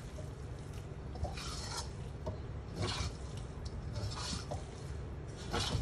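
Metal spatula scraping and turning fried flat rice noodles in a steel wok, one scrape about every second and a half, over a steady low hum.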